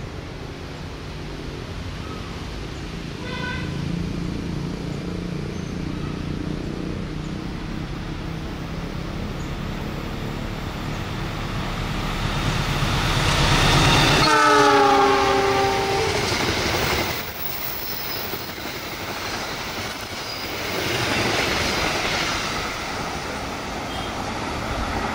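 Diesel-electric passenger train passing at speed, its engine and wheels rumbling on the rails. A brief distant horn toot about three seconds in, then the locomotive's horn sounds loudly as it goes by, its pitch dropping as it passes.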